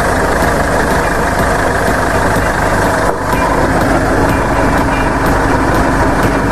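2010 Ford Ranger's engine and driveline running, heard from underneath the truck, a loud steady mechanical noise with a faint regular ticking about twice a second. This is the driveline noise, first reported as a possible wheel bearing, that the video traces to a noisy driveshaft.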